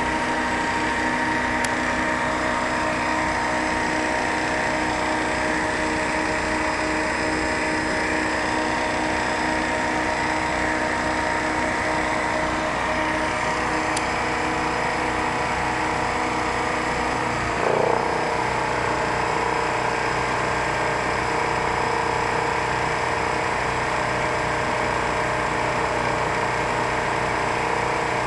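Kohler 5E 5 kW marine gasoline generator running steadily. About two-thirds of the way through, its tone dips briefly with a short louder moment, then it settles back to the same steady run.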